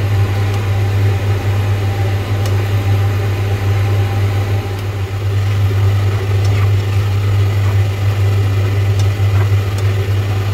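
A steady low hum, with a spatula now and then scraping through a thick bamboo-shoot stew in a metal pan.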